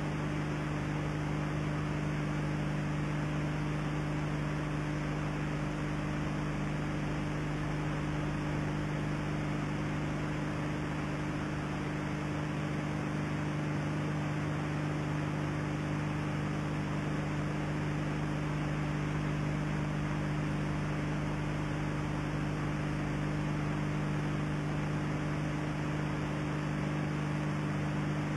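Steady electrical mains hum with a constant hiss and nothing else: the noise floor of an old analogue video recording. It neither changes nor breaks.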